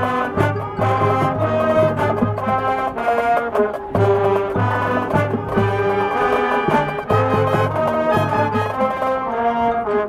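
High school marching band playing a loud, continuous brass passage, with trumpets and trombones carrying the melody over a steady, repeating low pulse.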